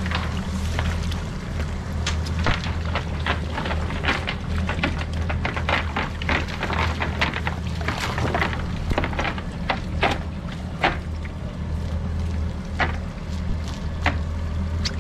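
Cast net being emptied of pilchards into a boat's livewell: many irregular sharp taps and clatter as the net's lead weights and flipping baitfish hit the fiberglass hatch and deck, over a steady low hum.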